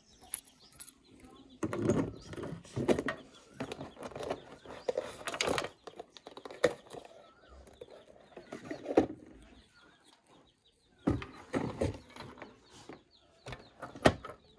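Handling noises: a key ring jangling and clicking, with scattered knocks and clatter as a scooter's seat is unlocked with the key and lifted.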